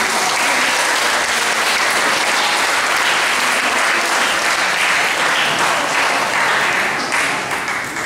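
Audience applauding, starting all at once as a song ends and dying away near the end.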